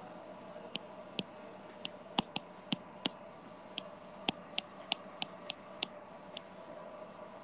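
A stylus tip tapping and clicking on a tablet's glass screen during handwriting: about fifteen short, sharp clicks at an irregular pace, over a faint steady hum.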